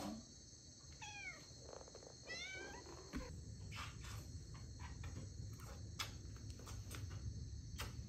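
Black-and-white domestic cat meowing twice, about a second apart, each a short call that bends in pitch. From about three seconds in, only a few faint clicks and rustles as the cat is held.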